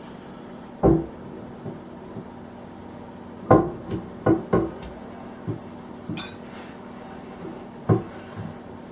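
Sharp metal clunks and knocks, about seven spread irregularly, as a Bridgeport milling machine's cast-iron saddle is slid onto the knee's freshly oiled ways.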